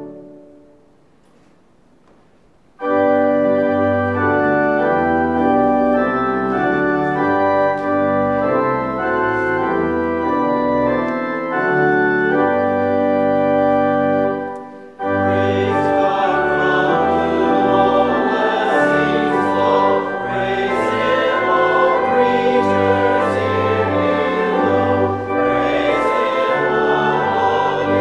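Pipe organ playing sustained chords, starting about three seconds in after a short quiet gap. After a brief break about halfway through, a choir starts singing with the organ.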